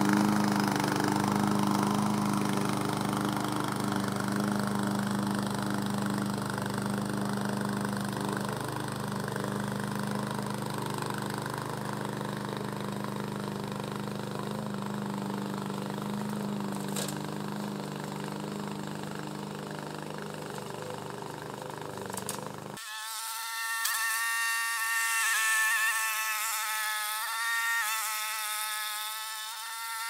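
Kohler Command Pro gasoline engine of a remote-control slope mower running steadily under load as it climbs a steep slope. About 23 seconds in the sound changes abruptly to a thin, high buzz with the low end gone.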